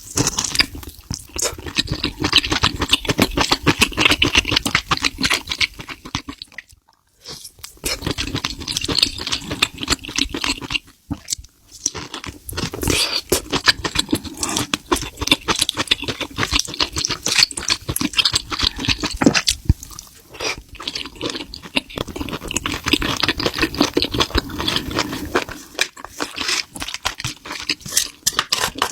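A person chewing spicy seafood with wet, crunchy mouth sounds, in long runs broken by a few short pauses.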